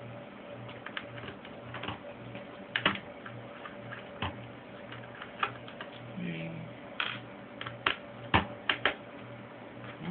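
Irregular small clicks and taps of a screwdriver and tiny screws against the plastic and metal of a netbook's screen assembly as the screws are taken out, loudest about three seconds in and again near the end.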